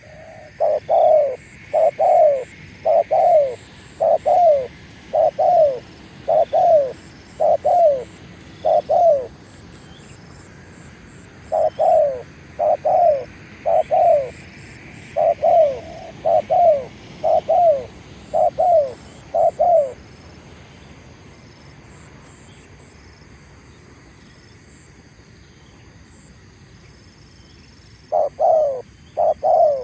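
Spotted dove (tekukur) cooing in long series of short, low, falling notes, about one a second. There is a brief break about ten seconds in, the cooing stops at about twenty seconds, and it starts again near the end.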